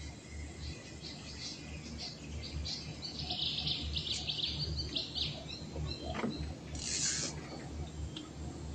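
Small birds chirping in the riverside trees: a scatter of short high chirps that thickens into a quick run of calls in the middle, over a steady low hum.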